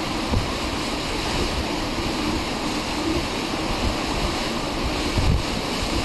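Strong gusty wind rushing steadily, buffeting the microphone with uneven low rumbles.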